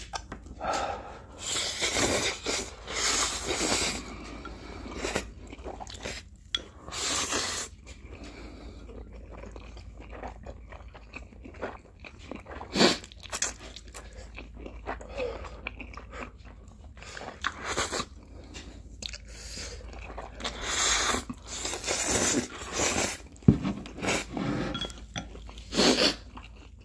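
Slurping and chewing of spicy instant ramen noodles, in irregular bursts with short pauses between mouthfuls.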